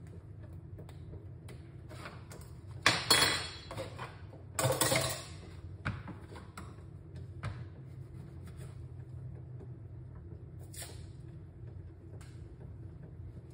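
Kitchen handling noises of pots and dishes: two loud bursts of noise about three and five seconds in, then a few lighter knocks, over a steady low hum.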